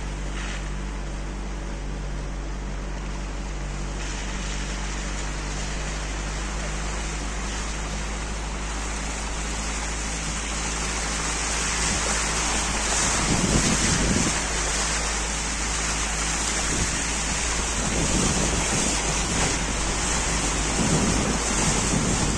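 Car driving slowly through puddles on a wet dirt road: tyres hiss and splash through the water over a low, steady engine hum. The water noise grows louder about halfway through, with heavier surges as the car ploughs through deep puddles.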